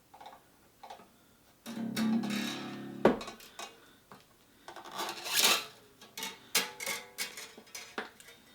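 A new steel low E guitar string being handled while it is fitted: the loose string twangs and rings briefly, then a sharp click. A rasp follows as the wire slides through, then a run of small clicks at the tuning peg.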